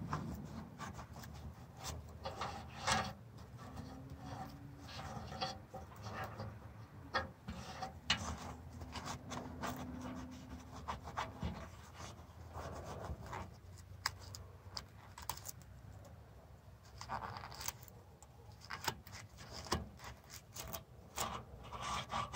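Irregular clicks, taps and rustling of small objects being handled, with a low background rumble.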